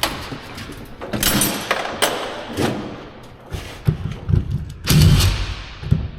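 A series of knocks and thuds, the heaviest about five seconds in, from hands and tools working on the panels and hardware of a commercial garage door being taken down.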